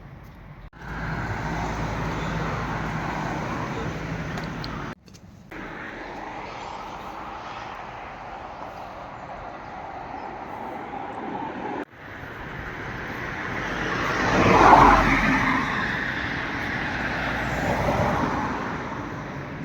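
Road traffic noise from cars, in several short clips cut together. About fifteen seconds in, a vehicle passes close, swelling up and fading away.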